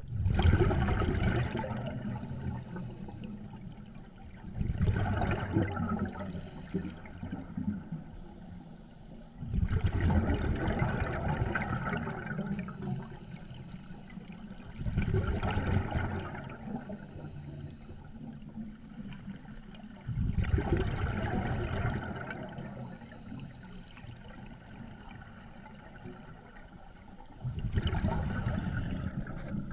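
Open-circuit scuba regulator breathing heard underwater: about every five seconds a sudden burst of exhaled bubbles rumbles and gurgles and then fades, six times in all. A short thin hiss of inhalation through the regulator comes in the gaps between them.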